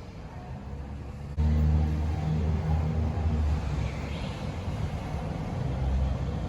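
A motor vehicle's engine running, jumping suddenly louder about a second and a half in and then holding steady.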